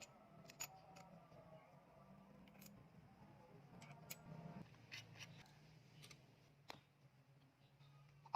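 Near silence with faint scattered clicks and light taps: the small metal parts of a Denso 10P15C AC compressor being handled and put back together.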